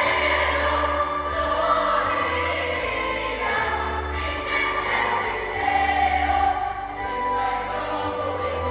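Choir singing a Christmas hymn over an instrumental accompaniment with a steady bass line.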